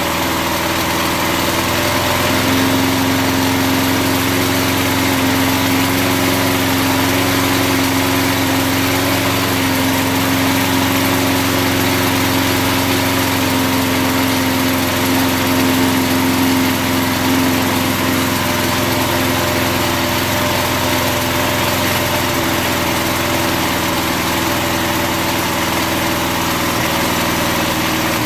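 Small single-cylinder push-mower engine running steadily, its crankcase filled with car wax in place of motor oil. A steady tone stands out in the running from about two seconds in until about seventeen seconds.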